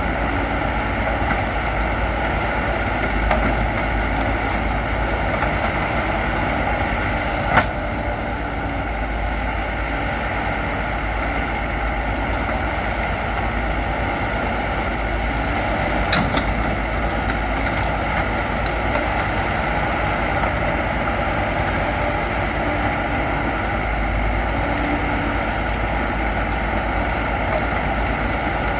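Backhoe loader's diesel engine running steadily while working, with a sharp knock about seven and a half seconds in and another about sixteen seconds in.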